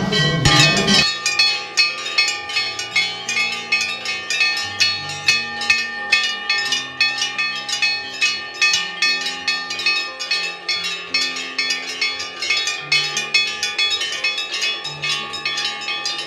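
Hanging brass temple bells rung continuously by many hands: a dense, fast clanging of strikes with their ringing tones overlapping. The clanging starts abruptly about a second in. Low held notes shift in pitch underneath.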